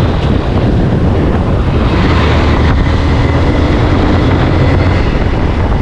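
Motorcycle engine running steadily while riding, with heavy wind noise on the microphone.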